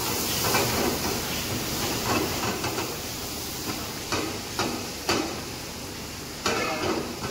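Food frying in a pan over a gas burner with a steady sizzling hiss, while a metal ladle scrapes and knocks against the pan about half a dozen times at uneven intervals.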